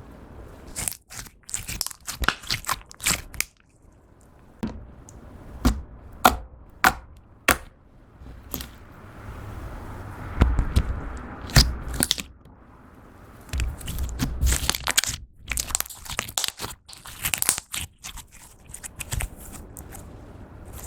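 Clear slime mixed with eyeshadow and lip gloss being squeezed and pressed by hand, giving irregular sticky pops, clicks and crackles, some in quick runs, with a lower squelching stretch about halfway through.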